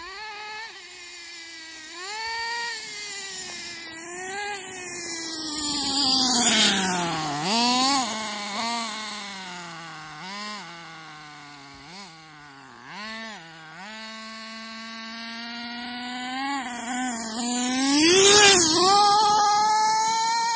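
HPI RC truggy's 4.6 cc nitro engine revving up and down as the truggy is driven, its pitch climbing and dropping again and again. It is loudest as the truggy passes close, about six seconds in and again near the end.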